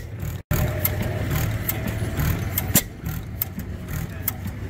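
5-horsepower Otto gas engine running smoothly: a steady low beat with sharp clicks at uneven intervals from its moving parts. The sound drops out for a moment near half a second in.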